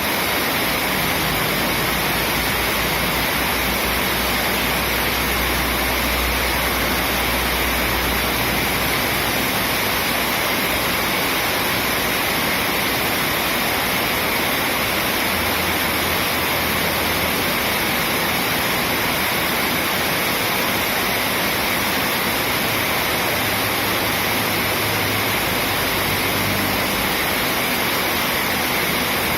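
Steady rushing of running water, a constant even roar with no let-up.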